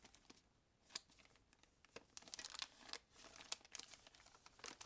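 Plastic packaging crinkling and rustling in irregular bursts, with a few sharp clicks, as kit parts are handled and unpacked.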